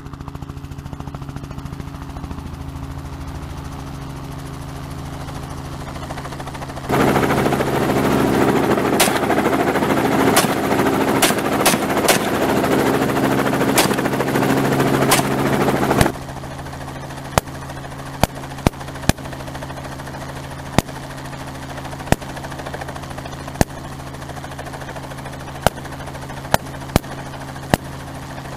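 Semi-automatic 12-gauge shotgun (FosTech Origin 12) fired in single shots, some only a fraction of a second apart, from a light helicopter over the steady drone of its rotor and engine. From about 7 to 16 seconds in, the helicopter noise is much louder and close, as heard inside the open cabin; before and after, the helicopter drones overhead and the shots crack out sharper and spaced, a dozen or so near the end.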